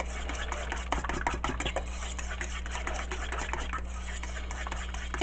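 Scattered small clicks and taps of kitchen prep, with utensils and containers being handled, over a steady low hum.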